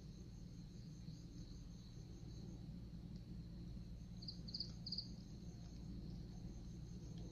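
Faint insect chirping: a steady high-pitched pulsing trill, with a few louder chirps between about four and five seconds in, over a low background hum.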